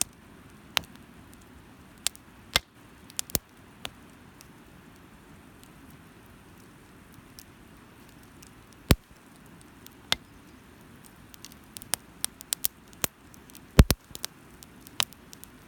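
Firewood burning in a fire stand, crackling with sharp, irregular pops over a steady low hiss. The pops come thicker near the end, with the loudest, a double pop, about fourteen seconds in.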